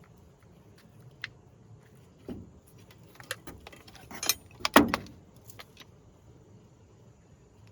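Metal clinking and clanking, as of hand tools or small metal parts being handled and set down: a few scattered clicks, then a quick flurry of sharp knocks about four to five seconds in, the loudest of them near the middle.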